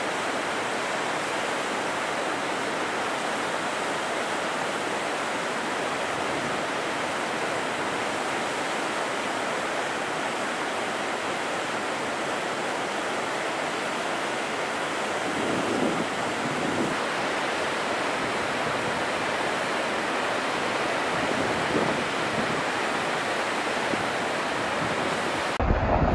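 Glacial meltwater river rushing along the foot of the glacier's ice face: a steady, even rush of water.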